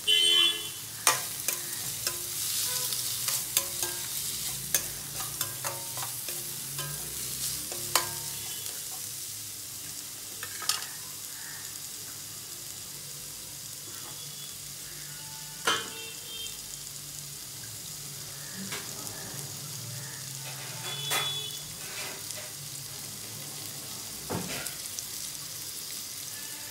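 Sliced onions and curry leaves sizzling in oil in a stainless steel kadai as they fry toward light golden, with a spatula knocking and scraping against the pan now and then as they are stirred.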